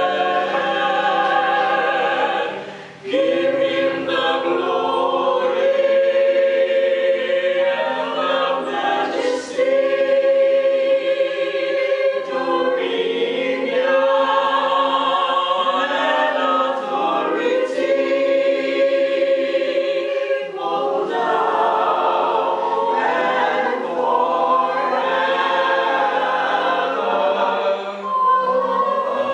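A small group singing a hymn together in long held notes, the phrases broken by short pauses every several seconds.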